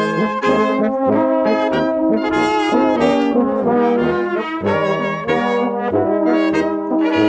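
Traditional Bavarian-style brass band playing a tune, with clarinets, tubas, baritone horns and a trumpet over a repeating bass line.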